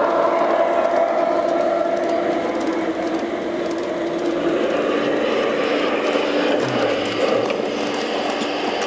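LGB garden-scale model train passing on outdoor track: a steady mechanical running hum from the locomotive's motor, with the rolling noise of the wheels and coaches.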